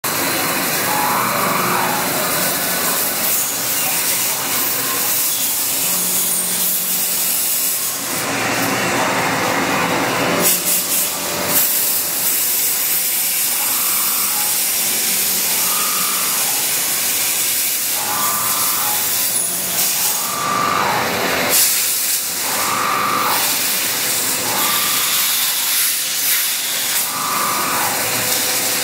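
A loud, steady hiss, with brief faint higher tones coming and going in the second half.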